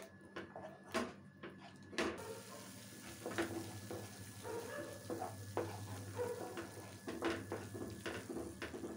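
A spatula stirring and scraping thick tomato-masala paste around a non-stick frying pan in irregular strokes, with a light sizzle of the paste frying. The paste is being fried down until the tomato's water cooks off.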